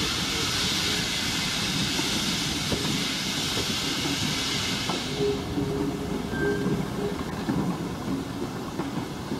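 Steam train pulling out: a loud steady hiss of steam that cuts off about five seconds in, over the low rumble and clicking of the carriages rolling along the rails, with a faint wheel squeal partway through.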